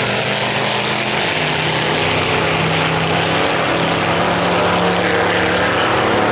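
Slingshot dragster's engine at full throttle on a drag run, a loud, steady drone as the car pulls away down the strip.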